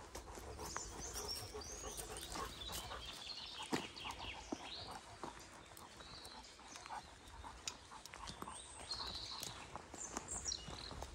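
Footsteps and a dog's paws on a sandy forest path, with small birds singing in the trees around them and a sharp click about four seconds in.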